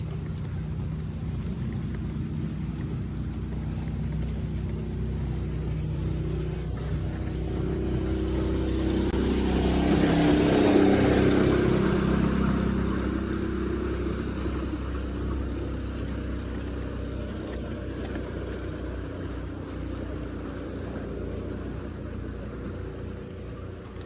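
A vehicle approaching and passing by, loudest about halfway through and then fading, over a steady low rumble.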